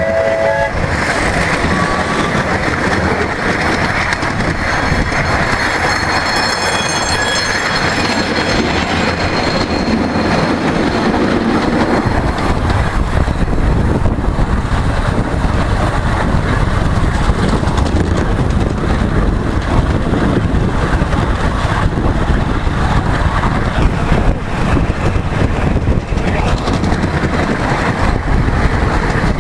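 Steady rumble and clatter of a miniature ride-on railway train's wheels running along the track, heard from on board a passenger car. A faint high-pitched squeal comes in briefly about five seconds in.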